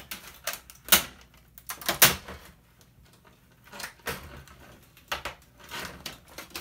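Stiff plastic panel and clips of a flat-screen TV cracking and snapping as they are pried apart with a screwdriver, with two loud sharp snaps about one and two seconds in, then lighter creaks and knocks as the panel is lifted.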